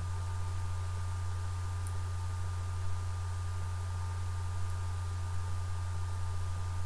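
Steady low electrical hum with an even hiss behind it, and no other sound of note.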